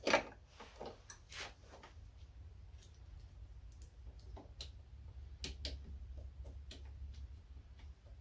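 Small irregular clicks and taps of a lawnmower carburetor being handled and fitted onto the engine's intake, the sharpest click right at the start, over a faint low hum.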